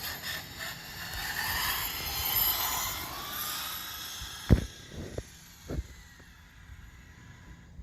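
RC monster truck's motor whining as it drives and accelerates, its pitch rising and falling. A sharp knock about four and a half seconds in, followed by a couple of smaller knocks.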